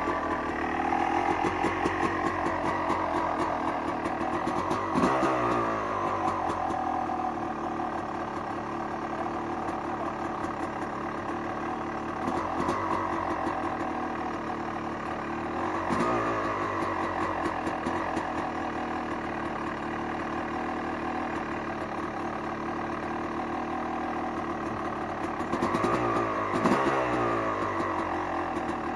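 Dirt bike engine idling, with short throttle blips about five seconds in, twice in the middle, and a double blip near the end.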